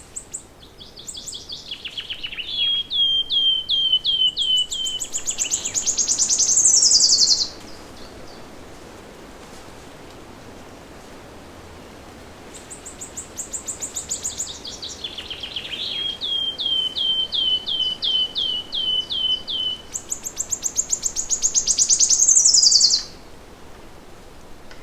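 A songbird singing the same long song twice, with a pause of about five seconds between. Each song is a run of quick repeated notes that ends in a loud, high trill falling in pitch, over a faint background hiss.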